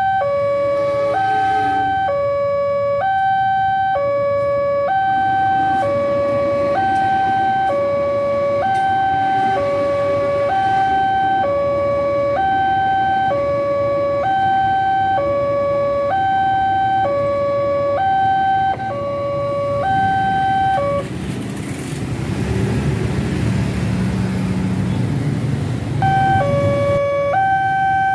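Railway level-crossing warning alarm sounding a two-tone electronic ding-dong, high and low tones alternating about once a second, over the low rumble of a passenger train passing. About three-quarters of the way through the alarm stops for roughly five seconds while a louder low rumble fills in, then it starts again as the barrier lifts.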